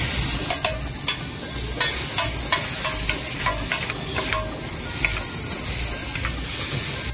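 Chow mein noodles sizzling on a large flat griddle as two metal spatulas toss and scrape through them: irregular metallic clinks and scrapes of the spatulas on the griddle over a steady frying hiss.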